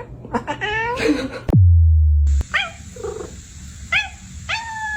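A pet animal's short, high-pitched calls. Twice a call slides sharply down into a loud, low, steady tone that lasts about a second.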